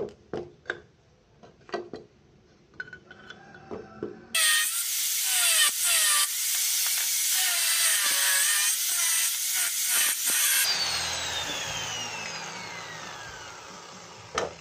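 Metal engine parts clatter as they are handled, then an angle grinder starts suddenly about four seconds in and cuts through a chainsaw's die-cast crankcase half for about six seconds. The grinder is then switched off and its disc winds down with a falling whine.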